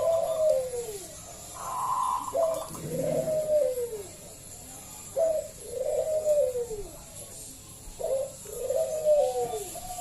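Zebra dove (perkutut) singing: four cooing phrases, each a short clipped note followed by a falling, warbling coo, repeated about every two and a half to three seconds.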